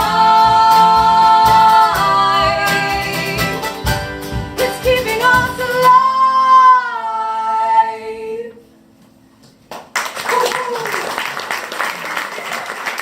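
Female vocals holding the song's final notes over strummed acoustic guitar, ending on one long sung note that fades out about eight seconds in. After a short silence, audience applause starts and continues.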